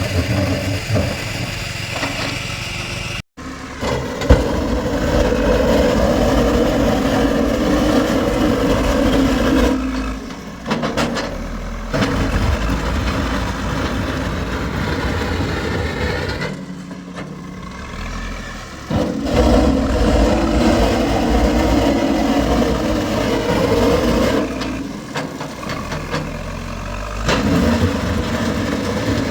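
JCB backhoe loader's diesel engine running, its note rising under load and easing off several times. There is a brief dropout about three seconds in.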